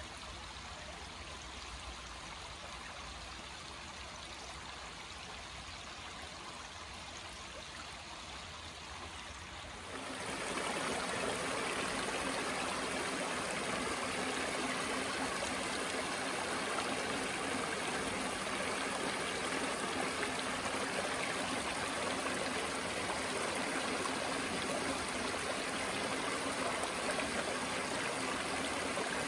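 Creek water flowing and rippling over rocks in a steady wash. About ten seconds in it becomes louder and fuller: shallow water spilling over flat rock ledges.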